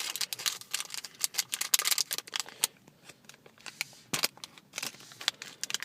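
Silver foil blind bag crinkling and crackling as it is handled and opened: dense for the first few seconds, then sparser, with one sharper click about four seconds in.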